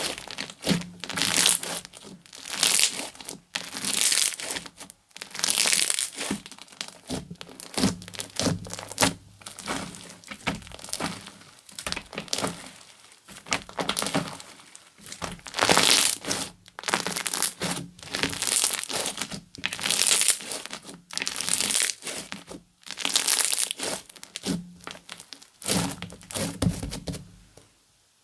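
Guacamole slime squeezed and stretched by hand in repeated presses, one every second or two, each a burst of fine crackles and pops; the handling stops shortly before the end.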